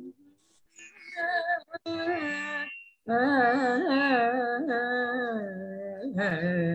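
A woman singing a devotional Sanskrit shloka in a Carnatic style: two long, slowly gliding phrases of held, ornamented notes with a short break about three seconds in.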